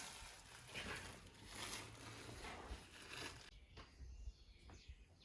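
Faint rustling and handling noise that drops away about three and a half seconds in, leaving a quieter background with a few faint high chirps.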